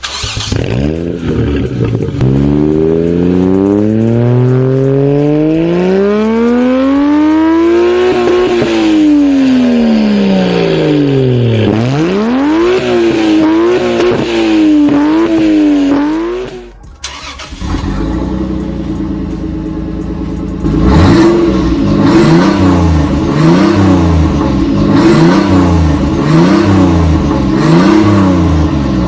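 Toyota Supra engine revving: one long rise and fall in pitch, then a series of quick throttle blips. About halfway through the sound cuts to another recording of the engine being revved over and over, roughly once a second.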